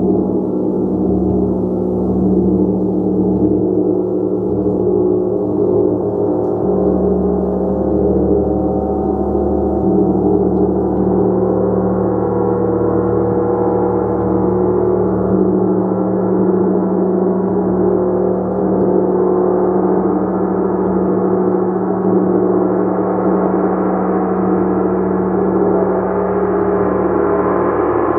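A gong played in a continuous, sustained wash of many overlapping tones with no distinct strikes, growing brighter over the last half.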